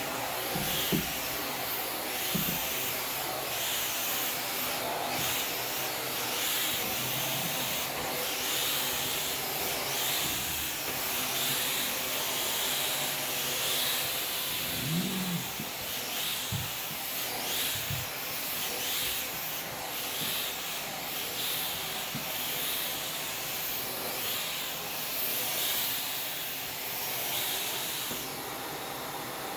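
Allegro Champion MUA50 central vacuum running, with air rushing through the hose and cleaning tool. The hiss swells and eases every second or two, with a few soft low thumps.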